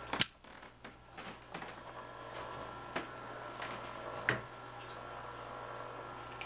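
Light rustles and scattered short clicks as a kitten plays in crumpled paper and plastic wrapping, with a sharp click at the very start and a steady faint hum underneath.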